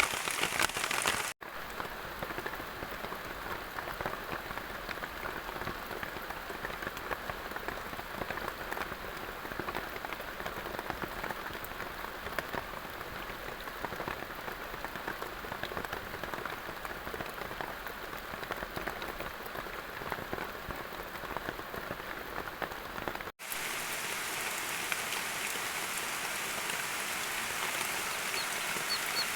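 Steady rain falling, with two brief dropouts where the recording cuts: one about a second and a half in, and one about three quarters of the way through.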